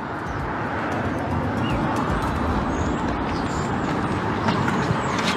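Steady street noise of road traffic, an even rushing hiss with no clear events in it.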